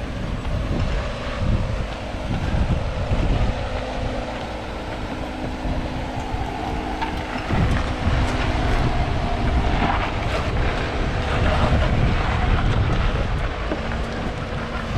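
Nissan Xterra engine running at low crawling speed as the truck works over rocks with two wheels hanging, with wind buffeting the microphone.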